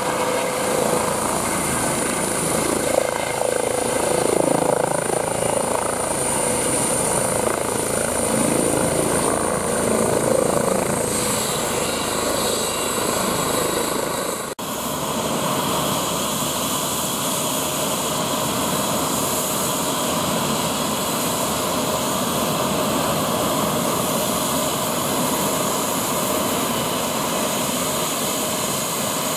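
Twin-turbine Airbus H135 (Eurocopter EC135) helicopter running loud and steady as it hovers in to land and then sits on the pad, rotor and turbine whine continuous. A high whine dips slightly about eleven seconds in. The sound breaks off abruptly about halfway, then carries on evenly.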